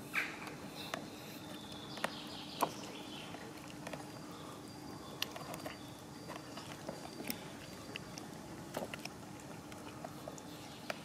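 Two cats chewing food from plastic tubs: irregular small clicks and crunches of eating.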